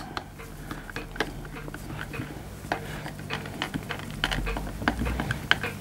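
Small scattered clicks and light metal taps of a screwdriver and small parts as a screw is tightened in the receiver of a CO2 lever-action air rifle; the clicks come more often near the end.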